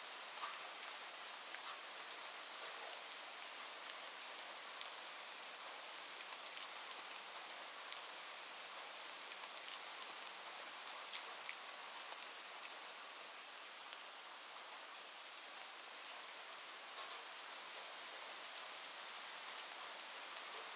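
Steady rain, a soft even hiss with scattered drops ticking on a surface.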